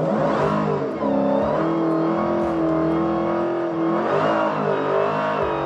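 Dodge Demon 170's supercharged 6.2-litre HEMI V8 revving hard through a burnout, the rear tyres spinning up into smoke. The revs climb, dip about a second in, hold steady for a couple of seconds, then dip and climb again near the end.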